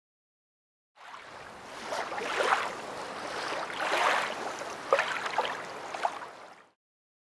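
Water sound effect: a wash of splashing, surging water that swells and ebbs several times, with a few sharp splashes. It starts suddenly about a second in and cuts off shortly before the end.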